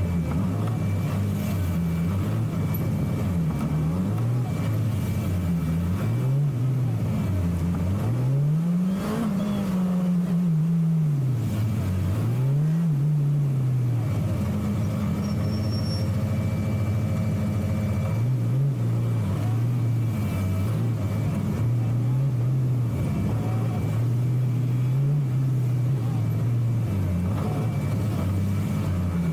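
Motorcycle engine heard from on the bike, its pitch rising and falling again and again as the rider speeds up and slows through tight turns, then running at a steadier pitch about halfway through.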